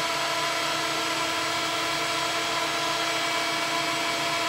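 LEM electric meat grinder running under load as beef is pushed down the feed tube and out through the grinding plate. Its motor gives a steady, even hum that holds one pitch throughout.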